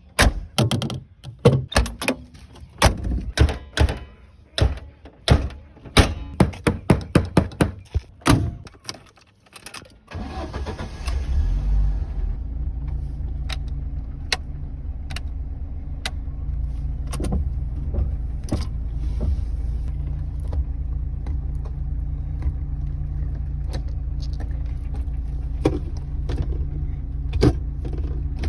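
A series of sharp clicks and knocks for about ten seconds, then a Niva's four-cylinder petrol engine starts and idles steadily and loudly.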